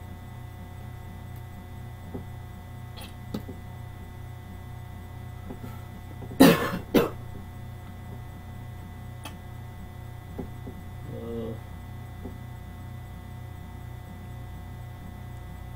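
A man coughs twice in quick succession about six and a half seconds in, the loudest thing here, over a steady electrical mains hum; he has said he is sick.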